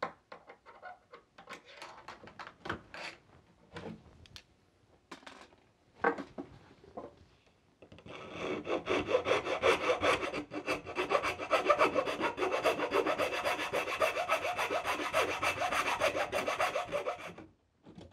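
Round rasp filing the wood of a door's spindle hole, enlarging it so it lines up with a new mortise lock body. Slow separate strokes at first, then fast continuous back-and-forth rasping from about eight seconds in until just before the end.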